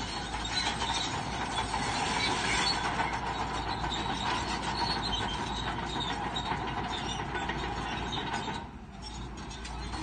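Crawler bulldozer working: its diesel engine running under load with a steady clanking clatter of steel tracks and rock as it pushes fill. The noise eases briefly near the end.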